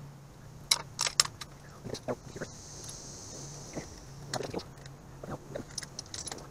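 Light metallic clicks and rattles of motorcycle throttle cable ends and their threaded adjuster fittings being handled and fitted at the carburetor: irregular sharp ticks, the loudest in the first second and a half.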